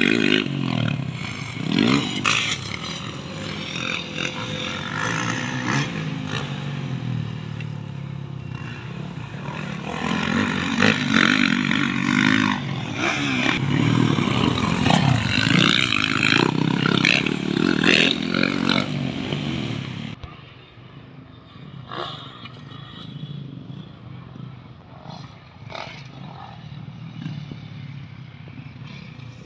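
Motocross dirt bike engine revving hard and easing off as it rides the track, its pitch rising and falling with the throttle. About two-thirds of the way through it gives way to a much quieter background with a few scattered knocks.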